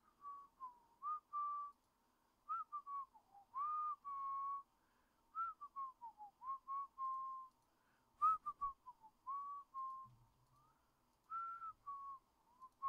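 A person whistling a tune: short notes that slide up and down, with brief pauses between phrases. A single sharp click comes about eight seconds in.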